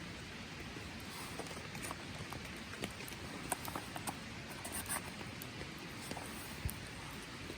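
Rain falling steadily, with many small scattered ticks and pops of drops.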